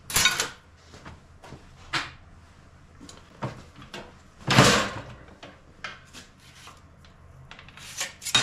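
Sheet-steel blank being cut to size by hand, with a few separate sharp cutting sounds or clanks of the sheet. The longest and loudest comes about halfway through, with small clicks and rattles of the metal between.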